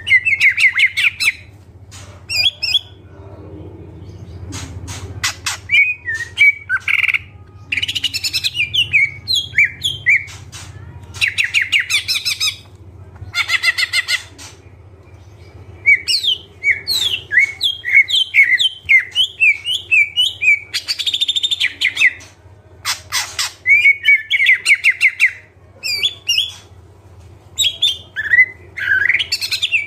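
Cucak ijo (green leafbird) singing in a busy, varied song: loud bursts of rapid chirps, trills and slurred whistles, each a second or two long, broken by short pauses, over a faint low hum.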